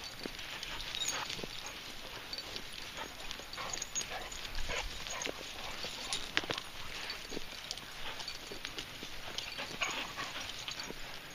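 Footsteps and dogs' paws on a walking path: irregular crunches and small clicks, with dogs moving about close by.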